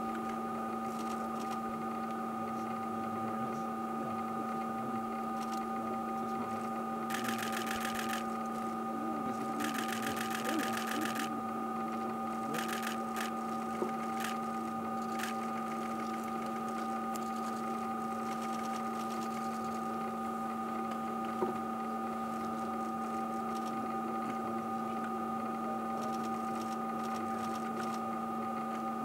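A steady mechanical hum made of several fixed tones. Two short buzzing whirs come about a quarter and a third of the way in, with a few faint ticks.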